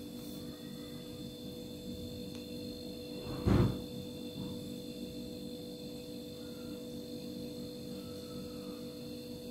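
Steady electrical hum made of a few constant tones, with a single short thump about three and a half seconds in.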